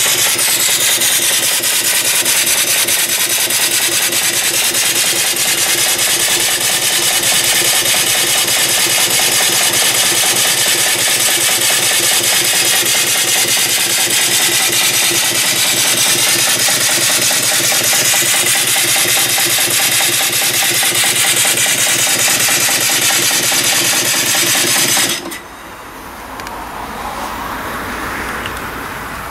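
Home-built single-cylinder vertical steam engine (3-inch bore, 4-inch stroke) running on boiler steam, its exhaust hissing loudly with rapid, even chuffs. The hiss cuts off suddenly about 25 seconds in, leaving a much fainter sound.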